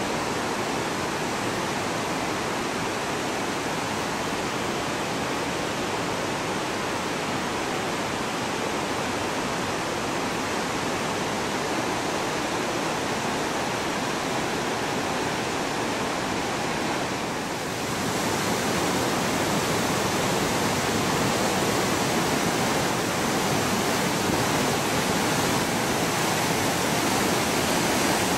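The fast-flowing Bhagirathi, the upper Ganges, rushing over its rocky bed: a steady rush of water that dips briefly and then grows a little louder about two-thirds of the way in.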